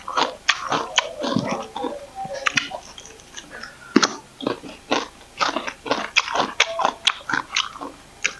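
Crisp crunching and chewing as raw green vegetables are bitten into, with many sharp bites in quick succession.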